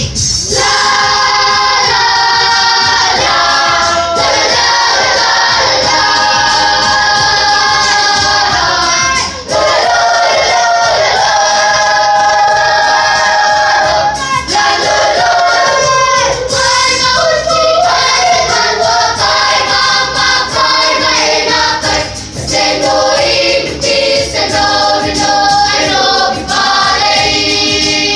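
Children's church choir singing, with a few short breaks between phrases.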